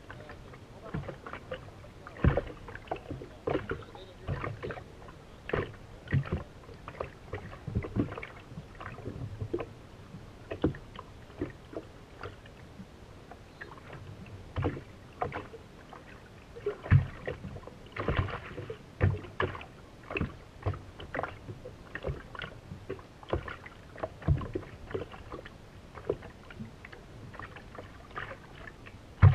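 Small waves slapping against the hull of a race boat sitting slow in the water: irregular knocks and slaps, one or two a second, with no steady engine note.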